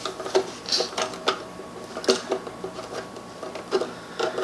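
Wire strippers working insulation off an electrical wire: a string of irregular sharp clicks and snips from the metal hand tool.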